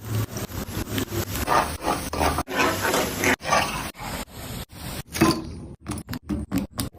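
Scraping and rubbing sounds of hand-made food preparation, in short clips that cut off abruptly several times, with a louder burst about five seconds in.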